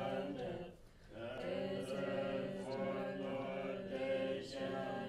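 Group of Tibetan Buddhist practitioners chanting a liturgy in unison on steady, held low notes, with a brief pause for breath about a second in.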